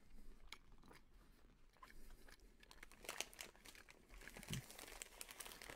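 Near silence with faint crinkles and small clicks of a plastic cookie package being handled, a little louder in the second half.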